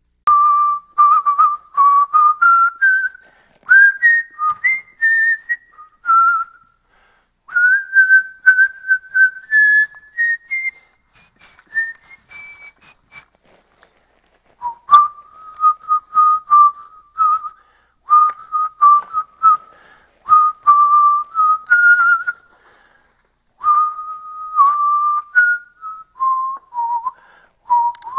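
A man whistling a slow, wandering tune in short phrases; it pauses briefly about halfway through, with a single sharp click, then carries on.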